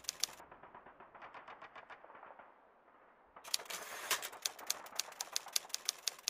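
Typewriter key clicks, fast and irregular, typing out on-screen title text. They go fainter and duller for about three seconds, then come back loud about three and a half seconds in.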